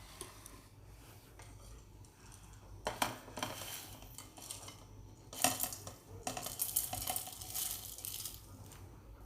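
Whole spices (cinnamon, black cardamom, black peppercorns, cloves and green cardamom) being tipped into a mixer-grinder jar, clattering and clinking: two short rattles, then a longer rattle of a few seconds near the end.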